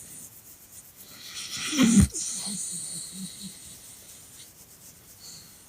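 A sleeping dog's noisy breath: a hissing breath builds over about a second to a sharp snort about two seconds in, followed by about six soft, low breathing pulses.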